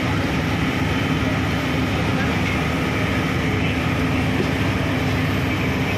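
An engine running steadily, a constant low drone with a steady hum.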